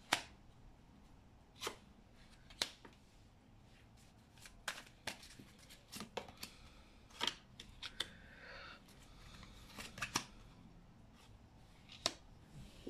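Tarot cards being shuffled by hand and laid down one at a time: quiet, irregular flicks and taps of the cards.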